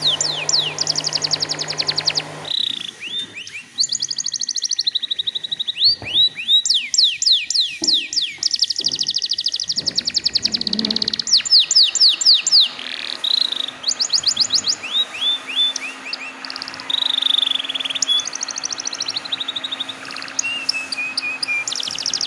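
Domestic canary singing a long song of rapid trills, each a run of quick downward-sweeping notes, switching to a new trill every second or two. A low hum sits under the first couple of seconds.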